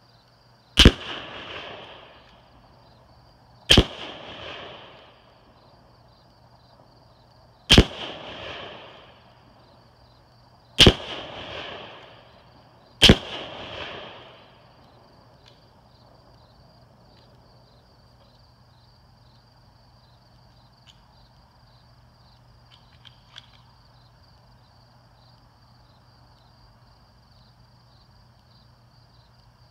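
Five rifle shots from a Ruger Gunsite Scout bolt-action rifle in .308, spaced two to four seconds apart in the first half, each followed by a short echoing tail. After that there is only quiet outdoor background.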